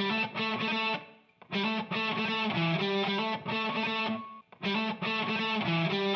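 Background music: rhythmic strummed electric guitar with distortion, playing chords in short repeated phrases with brief breaks.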